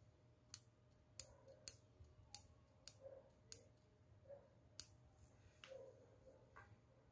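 Spring-handled stainless-steel mesh tea infuser being squeezed open and snapping shut: about seven sharp clicks over the first five seconds, irregularly spaced about half a second to a second apart, with a few softer handling sounds after.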